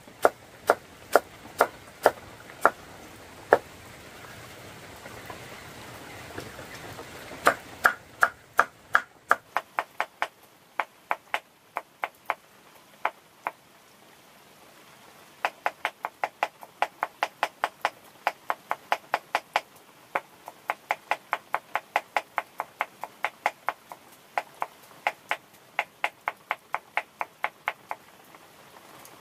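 A knife chopping plant material on a cutting board in a steady rhythm of sharp strikes. About four seconds in it stops for a few seconds, then picks up again faster, at about four strikes a second in the second half.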